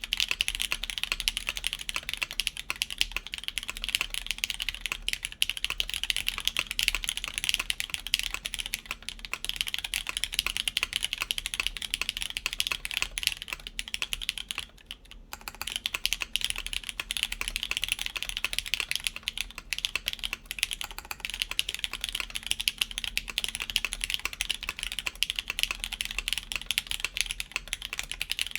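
Continuous typing on a DN Ogre mechanical keyboard with lubed Cherry MX Black linear switches, GMK Ki keycaps and a UHMWPE plate: a dense, steady stream of key clacks, with a short pause about halfway through.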